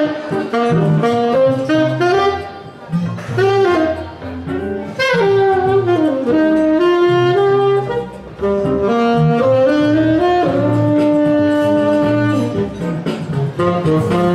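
Saxophone playing a jazz melody live, with slides between notes and a long held note about two thirds of the way through, over a backing track with a steady bass line.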